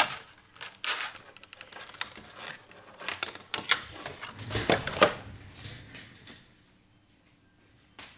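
Clicks and rustling of a trading-card collection box's packaging being handled as its contents are taken out, falling quiet for the last second or two.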